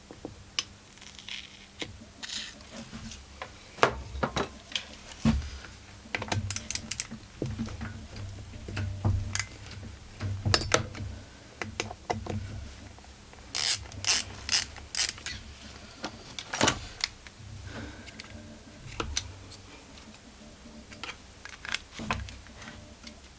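Irregular clicks and metallic clinks of a hand screwdriver working on the chainsaw's magneto (ignition module) screws, with small parts being handled.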